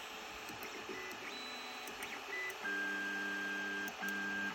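Ender 3 3D printer's stepper motors whining as the printer auto-homes its axes: a steady pitched whine of several tones starts about two and a half seconds in, cuts out briefly near the end, then resumes.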